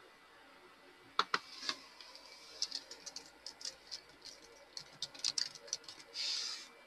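Irregular light clicks and taps from hands working at a desk, a few sharper ones about a second in and a quick run of small ones after, then a short rustle near the end.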